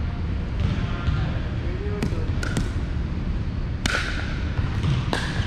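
Paddles striking a plastic pickleball during a rally: a few sharp pops, the first about two seconds in, then roughly a second or so apart, each ringing briefly in a large gym hall.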